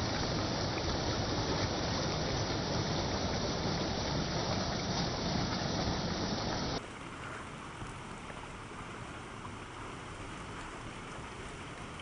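Steady rushing water, loud for the first seven seconds or so, then cutting abruptly to a quieter, even hiss of falling water.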